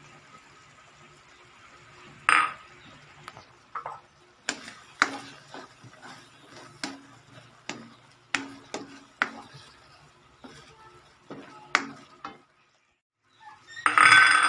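A utensil stirring a thick creamy sauce in a dark pan, knocking and scraping against the pan in a string of irregular clicks. A louder clatter with some ringing comes near the end.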